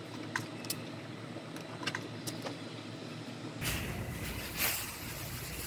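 Steady shop hum with a few light clicks, then, about three and a half seconds in, thin plastic masking sheeting rustling and crinkling as it is handled over a car body, in a few louder swishes.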